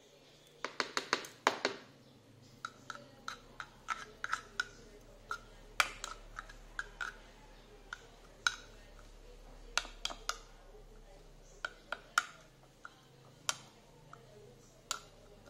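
Metal spoon clicking and scraping against a small plastic bowl while stirring grated garlic and ginger in oil: a quick run of clicks about a second in, then scattered single clicks.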